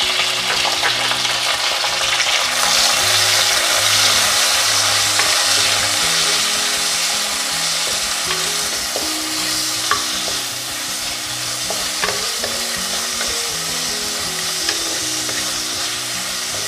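Sliced tomatoes sizzling in hot coconut oil in a clay pot, stirred with a wooden spatula, with a few light taps of the spatula against the pot.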